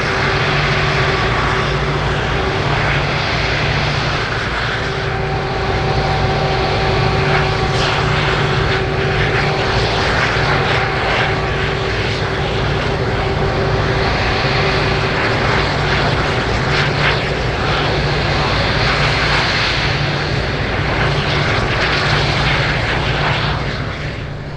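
Airbus A330-200 taxiing past, its twin jet engines at low taxi power: a steady engine whine with a few held tones over a deep rumble.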